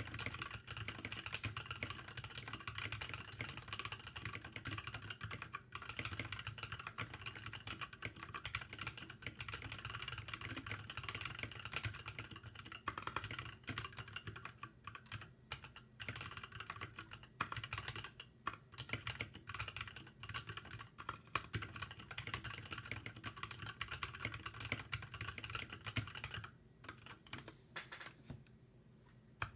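KBD75 mechanical keyboard with NovelKeys Cream linear switches on lubed 60g springs and PBT Cherry-profile keycaps, typed on quickly in a continuous run of key clacks. The typing stops for about three seconds near the end.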